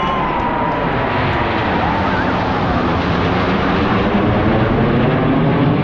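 Jet engine roar from a formation of Snowbirds CT-114 Tutor jets flying overhead with a dark grey fighter jet at its centre. It is a loud, steady roar with a slow sweeping, phasing quality, growing a little louder as the formation comes over.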